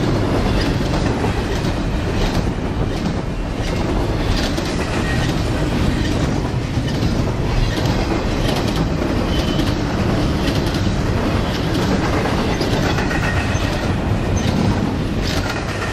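Double-stack intermodal freight train rolling steadily past: a continuous rumble of steel wheels on rail, with irregular clicks as the wheels cross rail joints and a few brief, faint wheel squeals.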